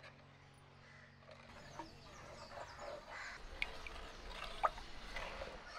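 Wooden spoon stirring thick rice batter in a clay pot, with two sharp knocks of the spoon against the pot. Birds chirp in the background, and soft background music fades out about a second and a half in.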